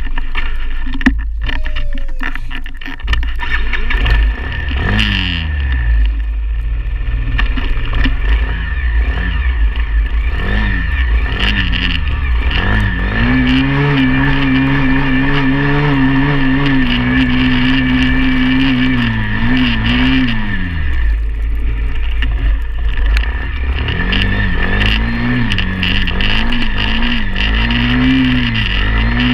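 Pit bike's small single-cylinder engine being ridden, revving up and dropping back again and again, then held at a steady speed for several seconds in the middle before easing off and picking up again. A low rumble of wind on the microphone runs underneath.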